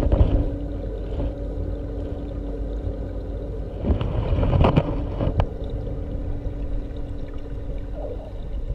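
A motor running with a steady low hum and rumble, with a few sharp knocks between about four and five and a half seconds in.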